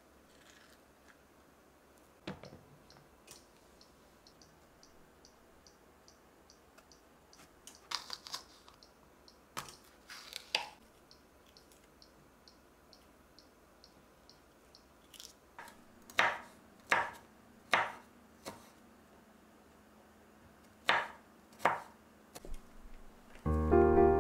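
A kitchen knife cutting bell peppers on a wooden cutting board, after a spoon scooping avocado flesh at first: scattered taps and knocks, then four chopping strokes about half a second apart about two-thirds of the way through, and two more a little later. A faint ticking of about two a second runs under the first half, and piano music comes in just before the end.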